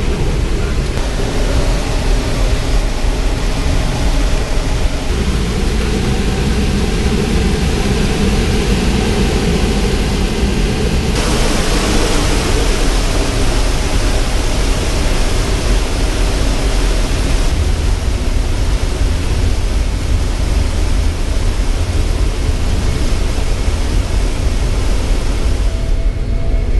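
Steady engine and airflow noise in the flight deck of a C-17 Globemaster III, its four turbofan engines running. The noise shifts suddenly in tone a few times and is brightest and hissiest in the middle.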